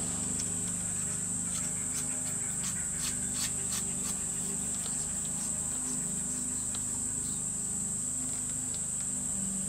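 Light clicks and taps of machined aluminium parts being handled and fitted together, a cluster between about one and four seconds in, over a constant high-pitched whine and a steady low hum.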